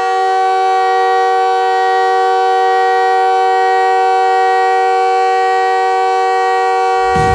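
An NHL arena goal horn blowing one long, steady, loud chord of several tones. About seven seconds in, goal music and a noisy burst come in over its tail.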